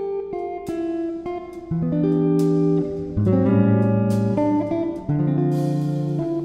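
Background music: a guitar playing plucked notes and chords over a bass line.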